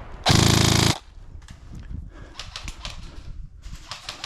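Airsoft gun firing one short full-auto burst of about half a second, with a fast, even rate of fire. Scattered faint clicks and ticks follow.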